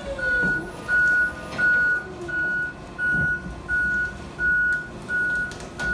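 Vehicle reversing alarm beeping steadily, one tone repeating about every 0.7 seconds, over a low engine rumble.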